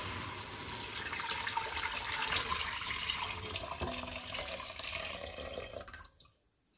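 Dandelion-flower infusion poured in a steady stream from a jug into a stainless steel pot, splashing and frothing on the liquid already in it; the pour stops about six seconds in.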